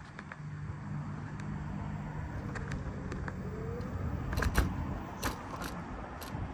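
Honda Motocompacto electric scooter being ridden on cracked asphalt: a steady low motor hum over the rolling noise of its small solid tires, with a brief rising whine about three seconds in and a few sharp knocks as the wheels cross the pavement cracks.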